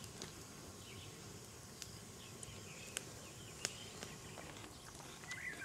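Quiet outdoor background with faint bird chirps, growing clearer near the end, and a few sharp light clicks.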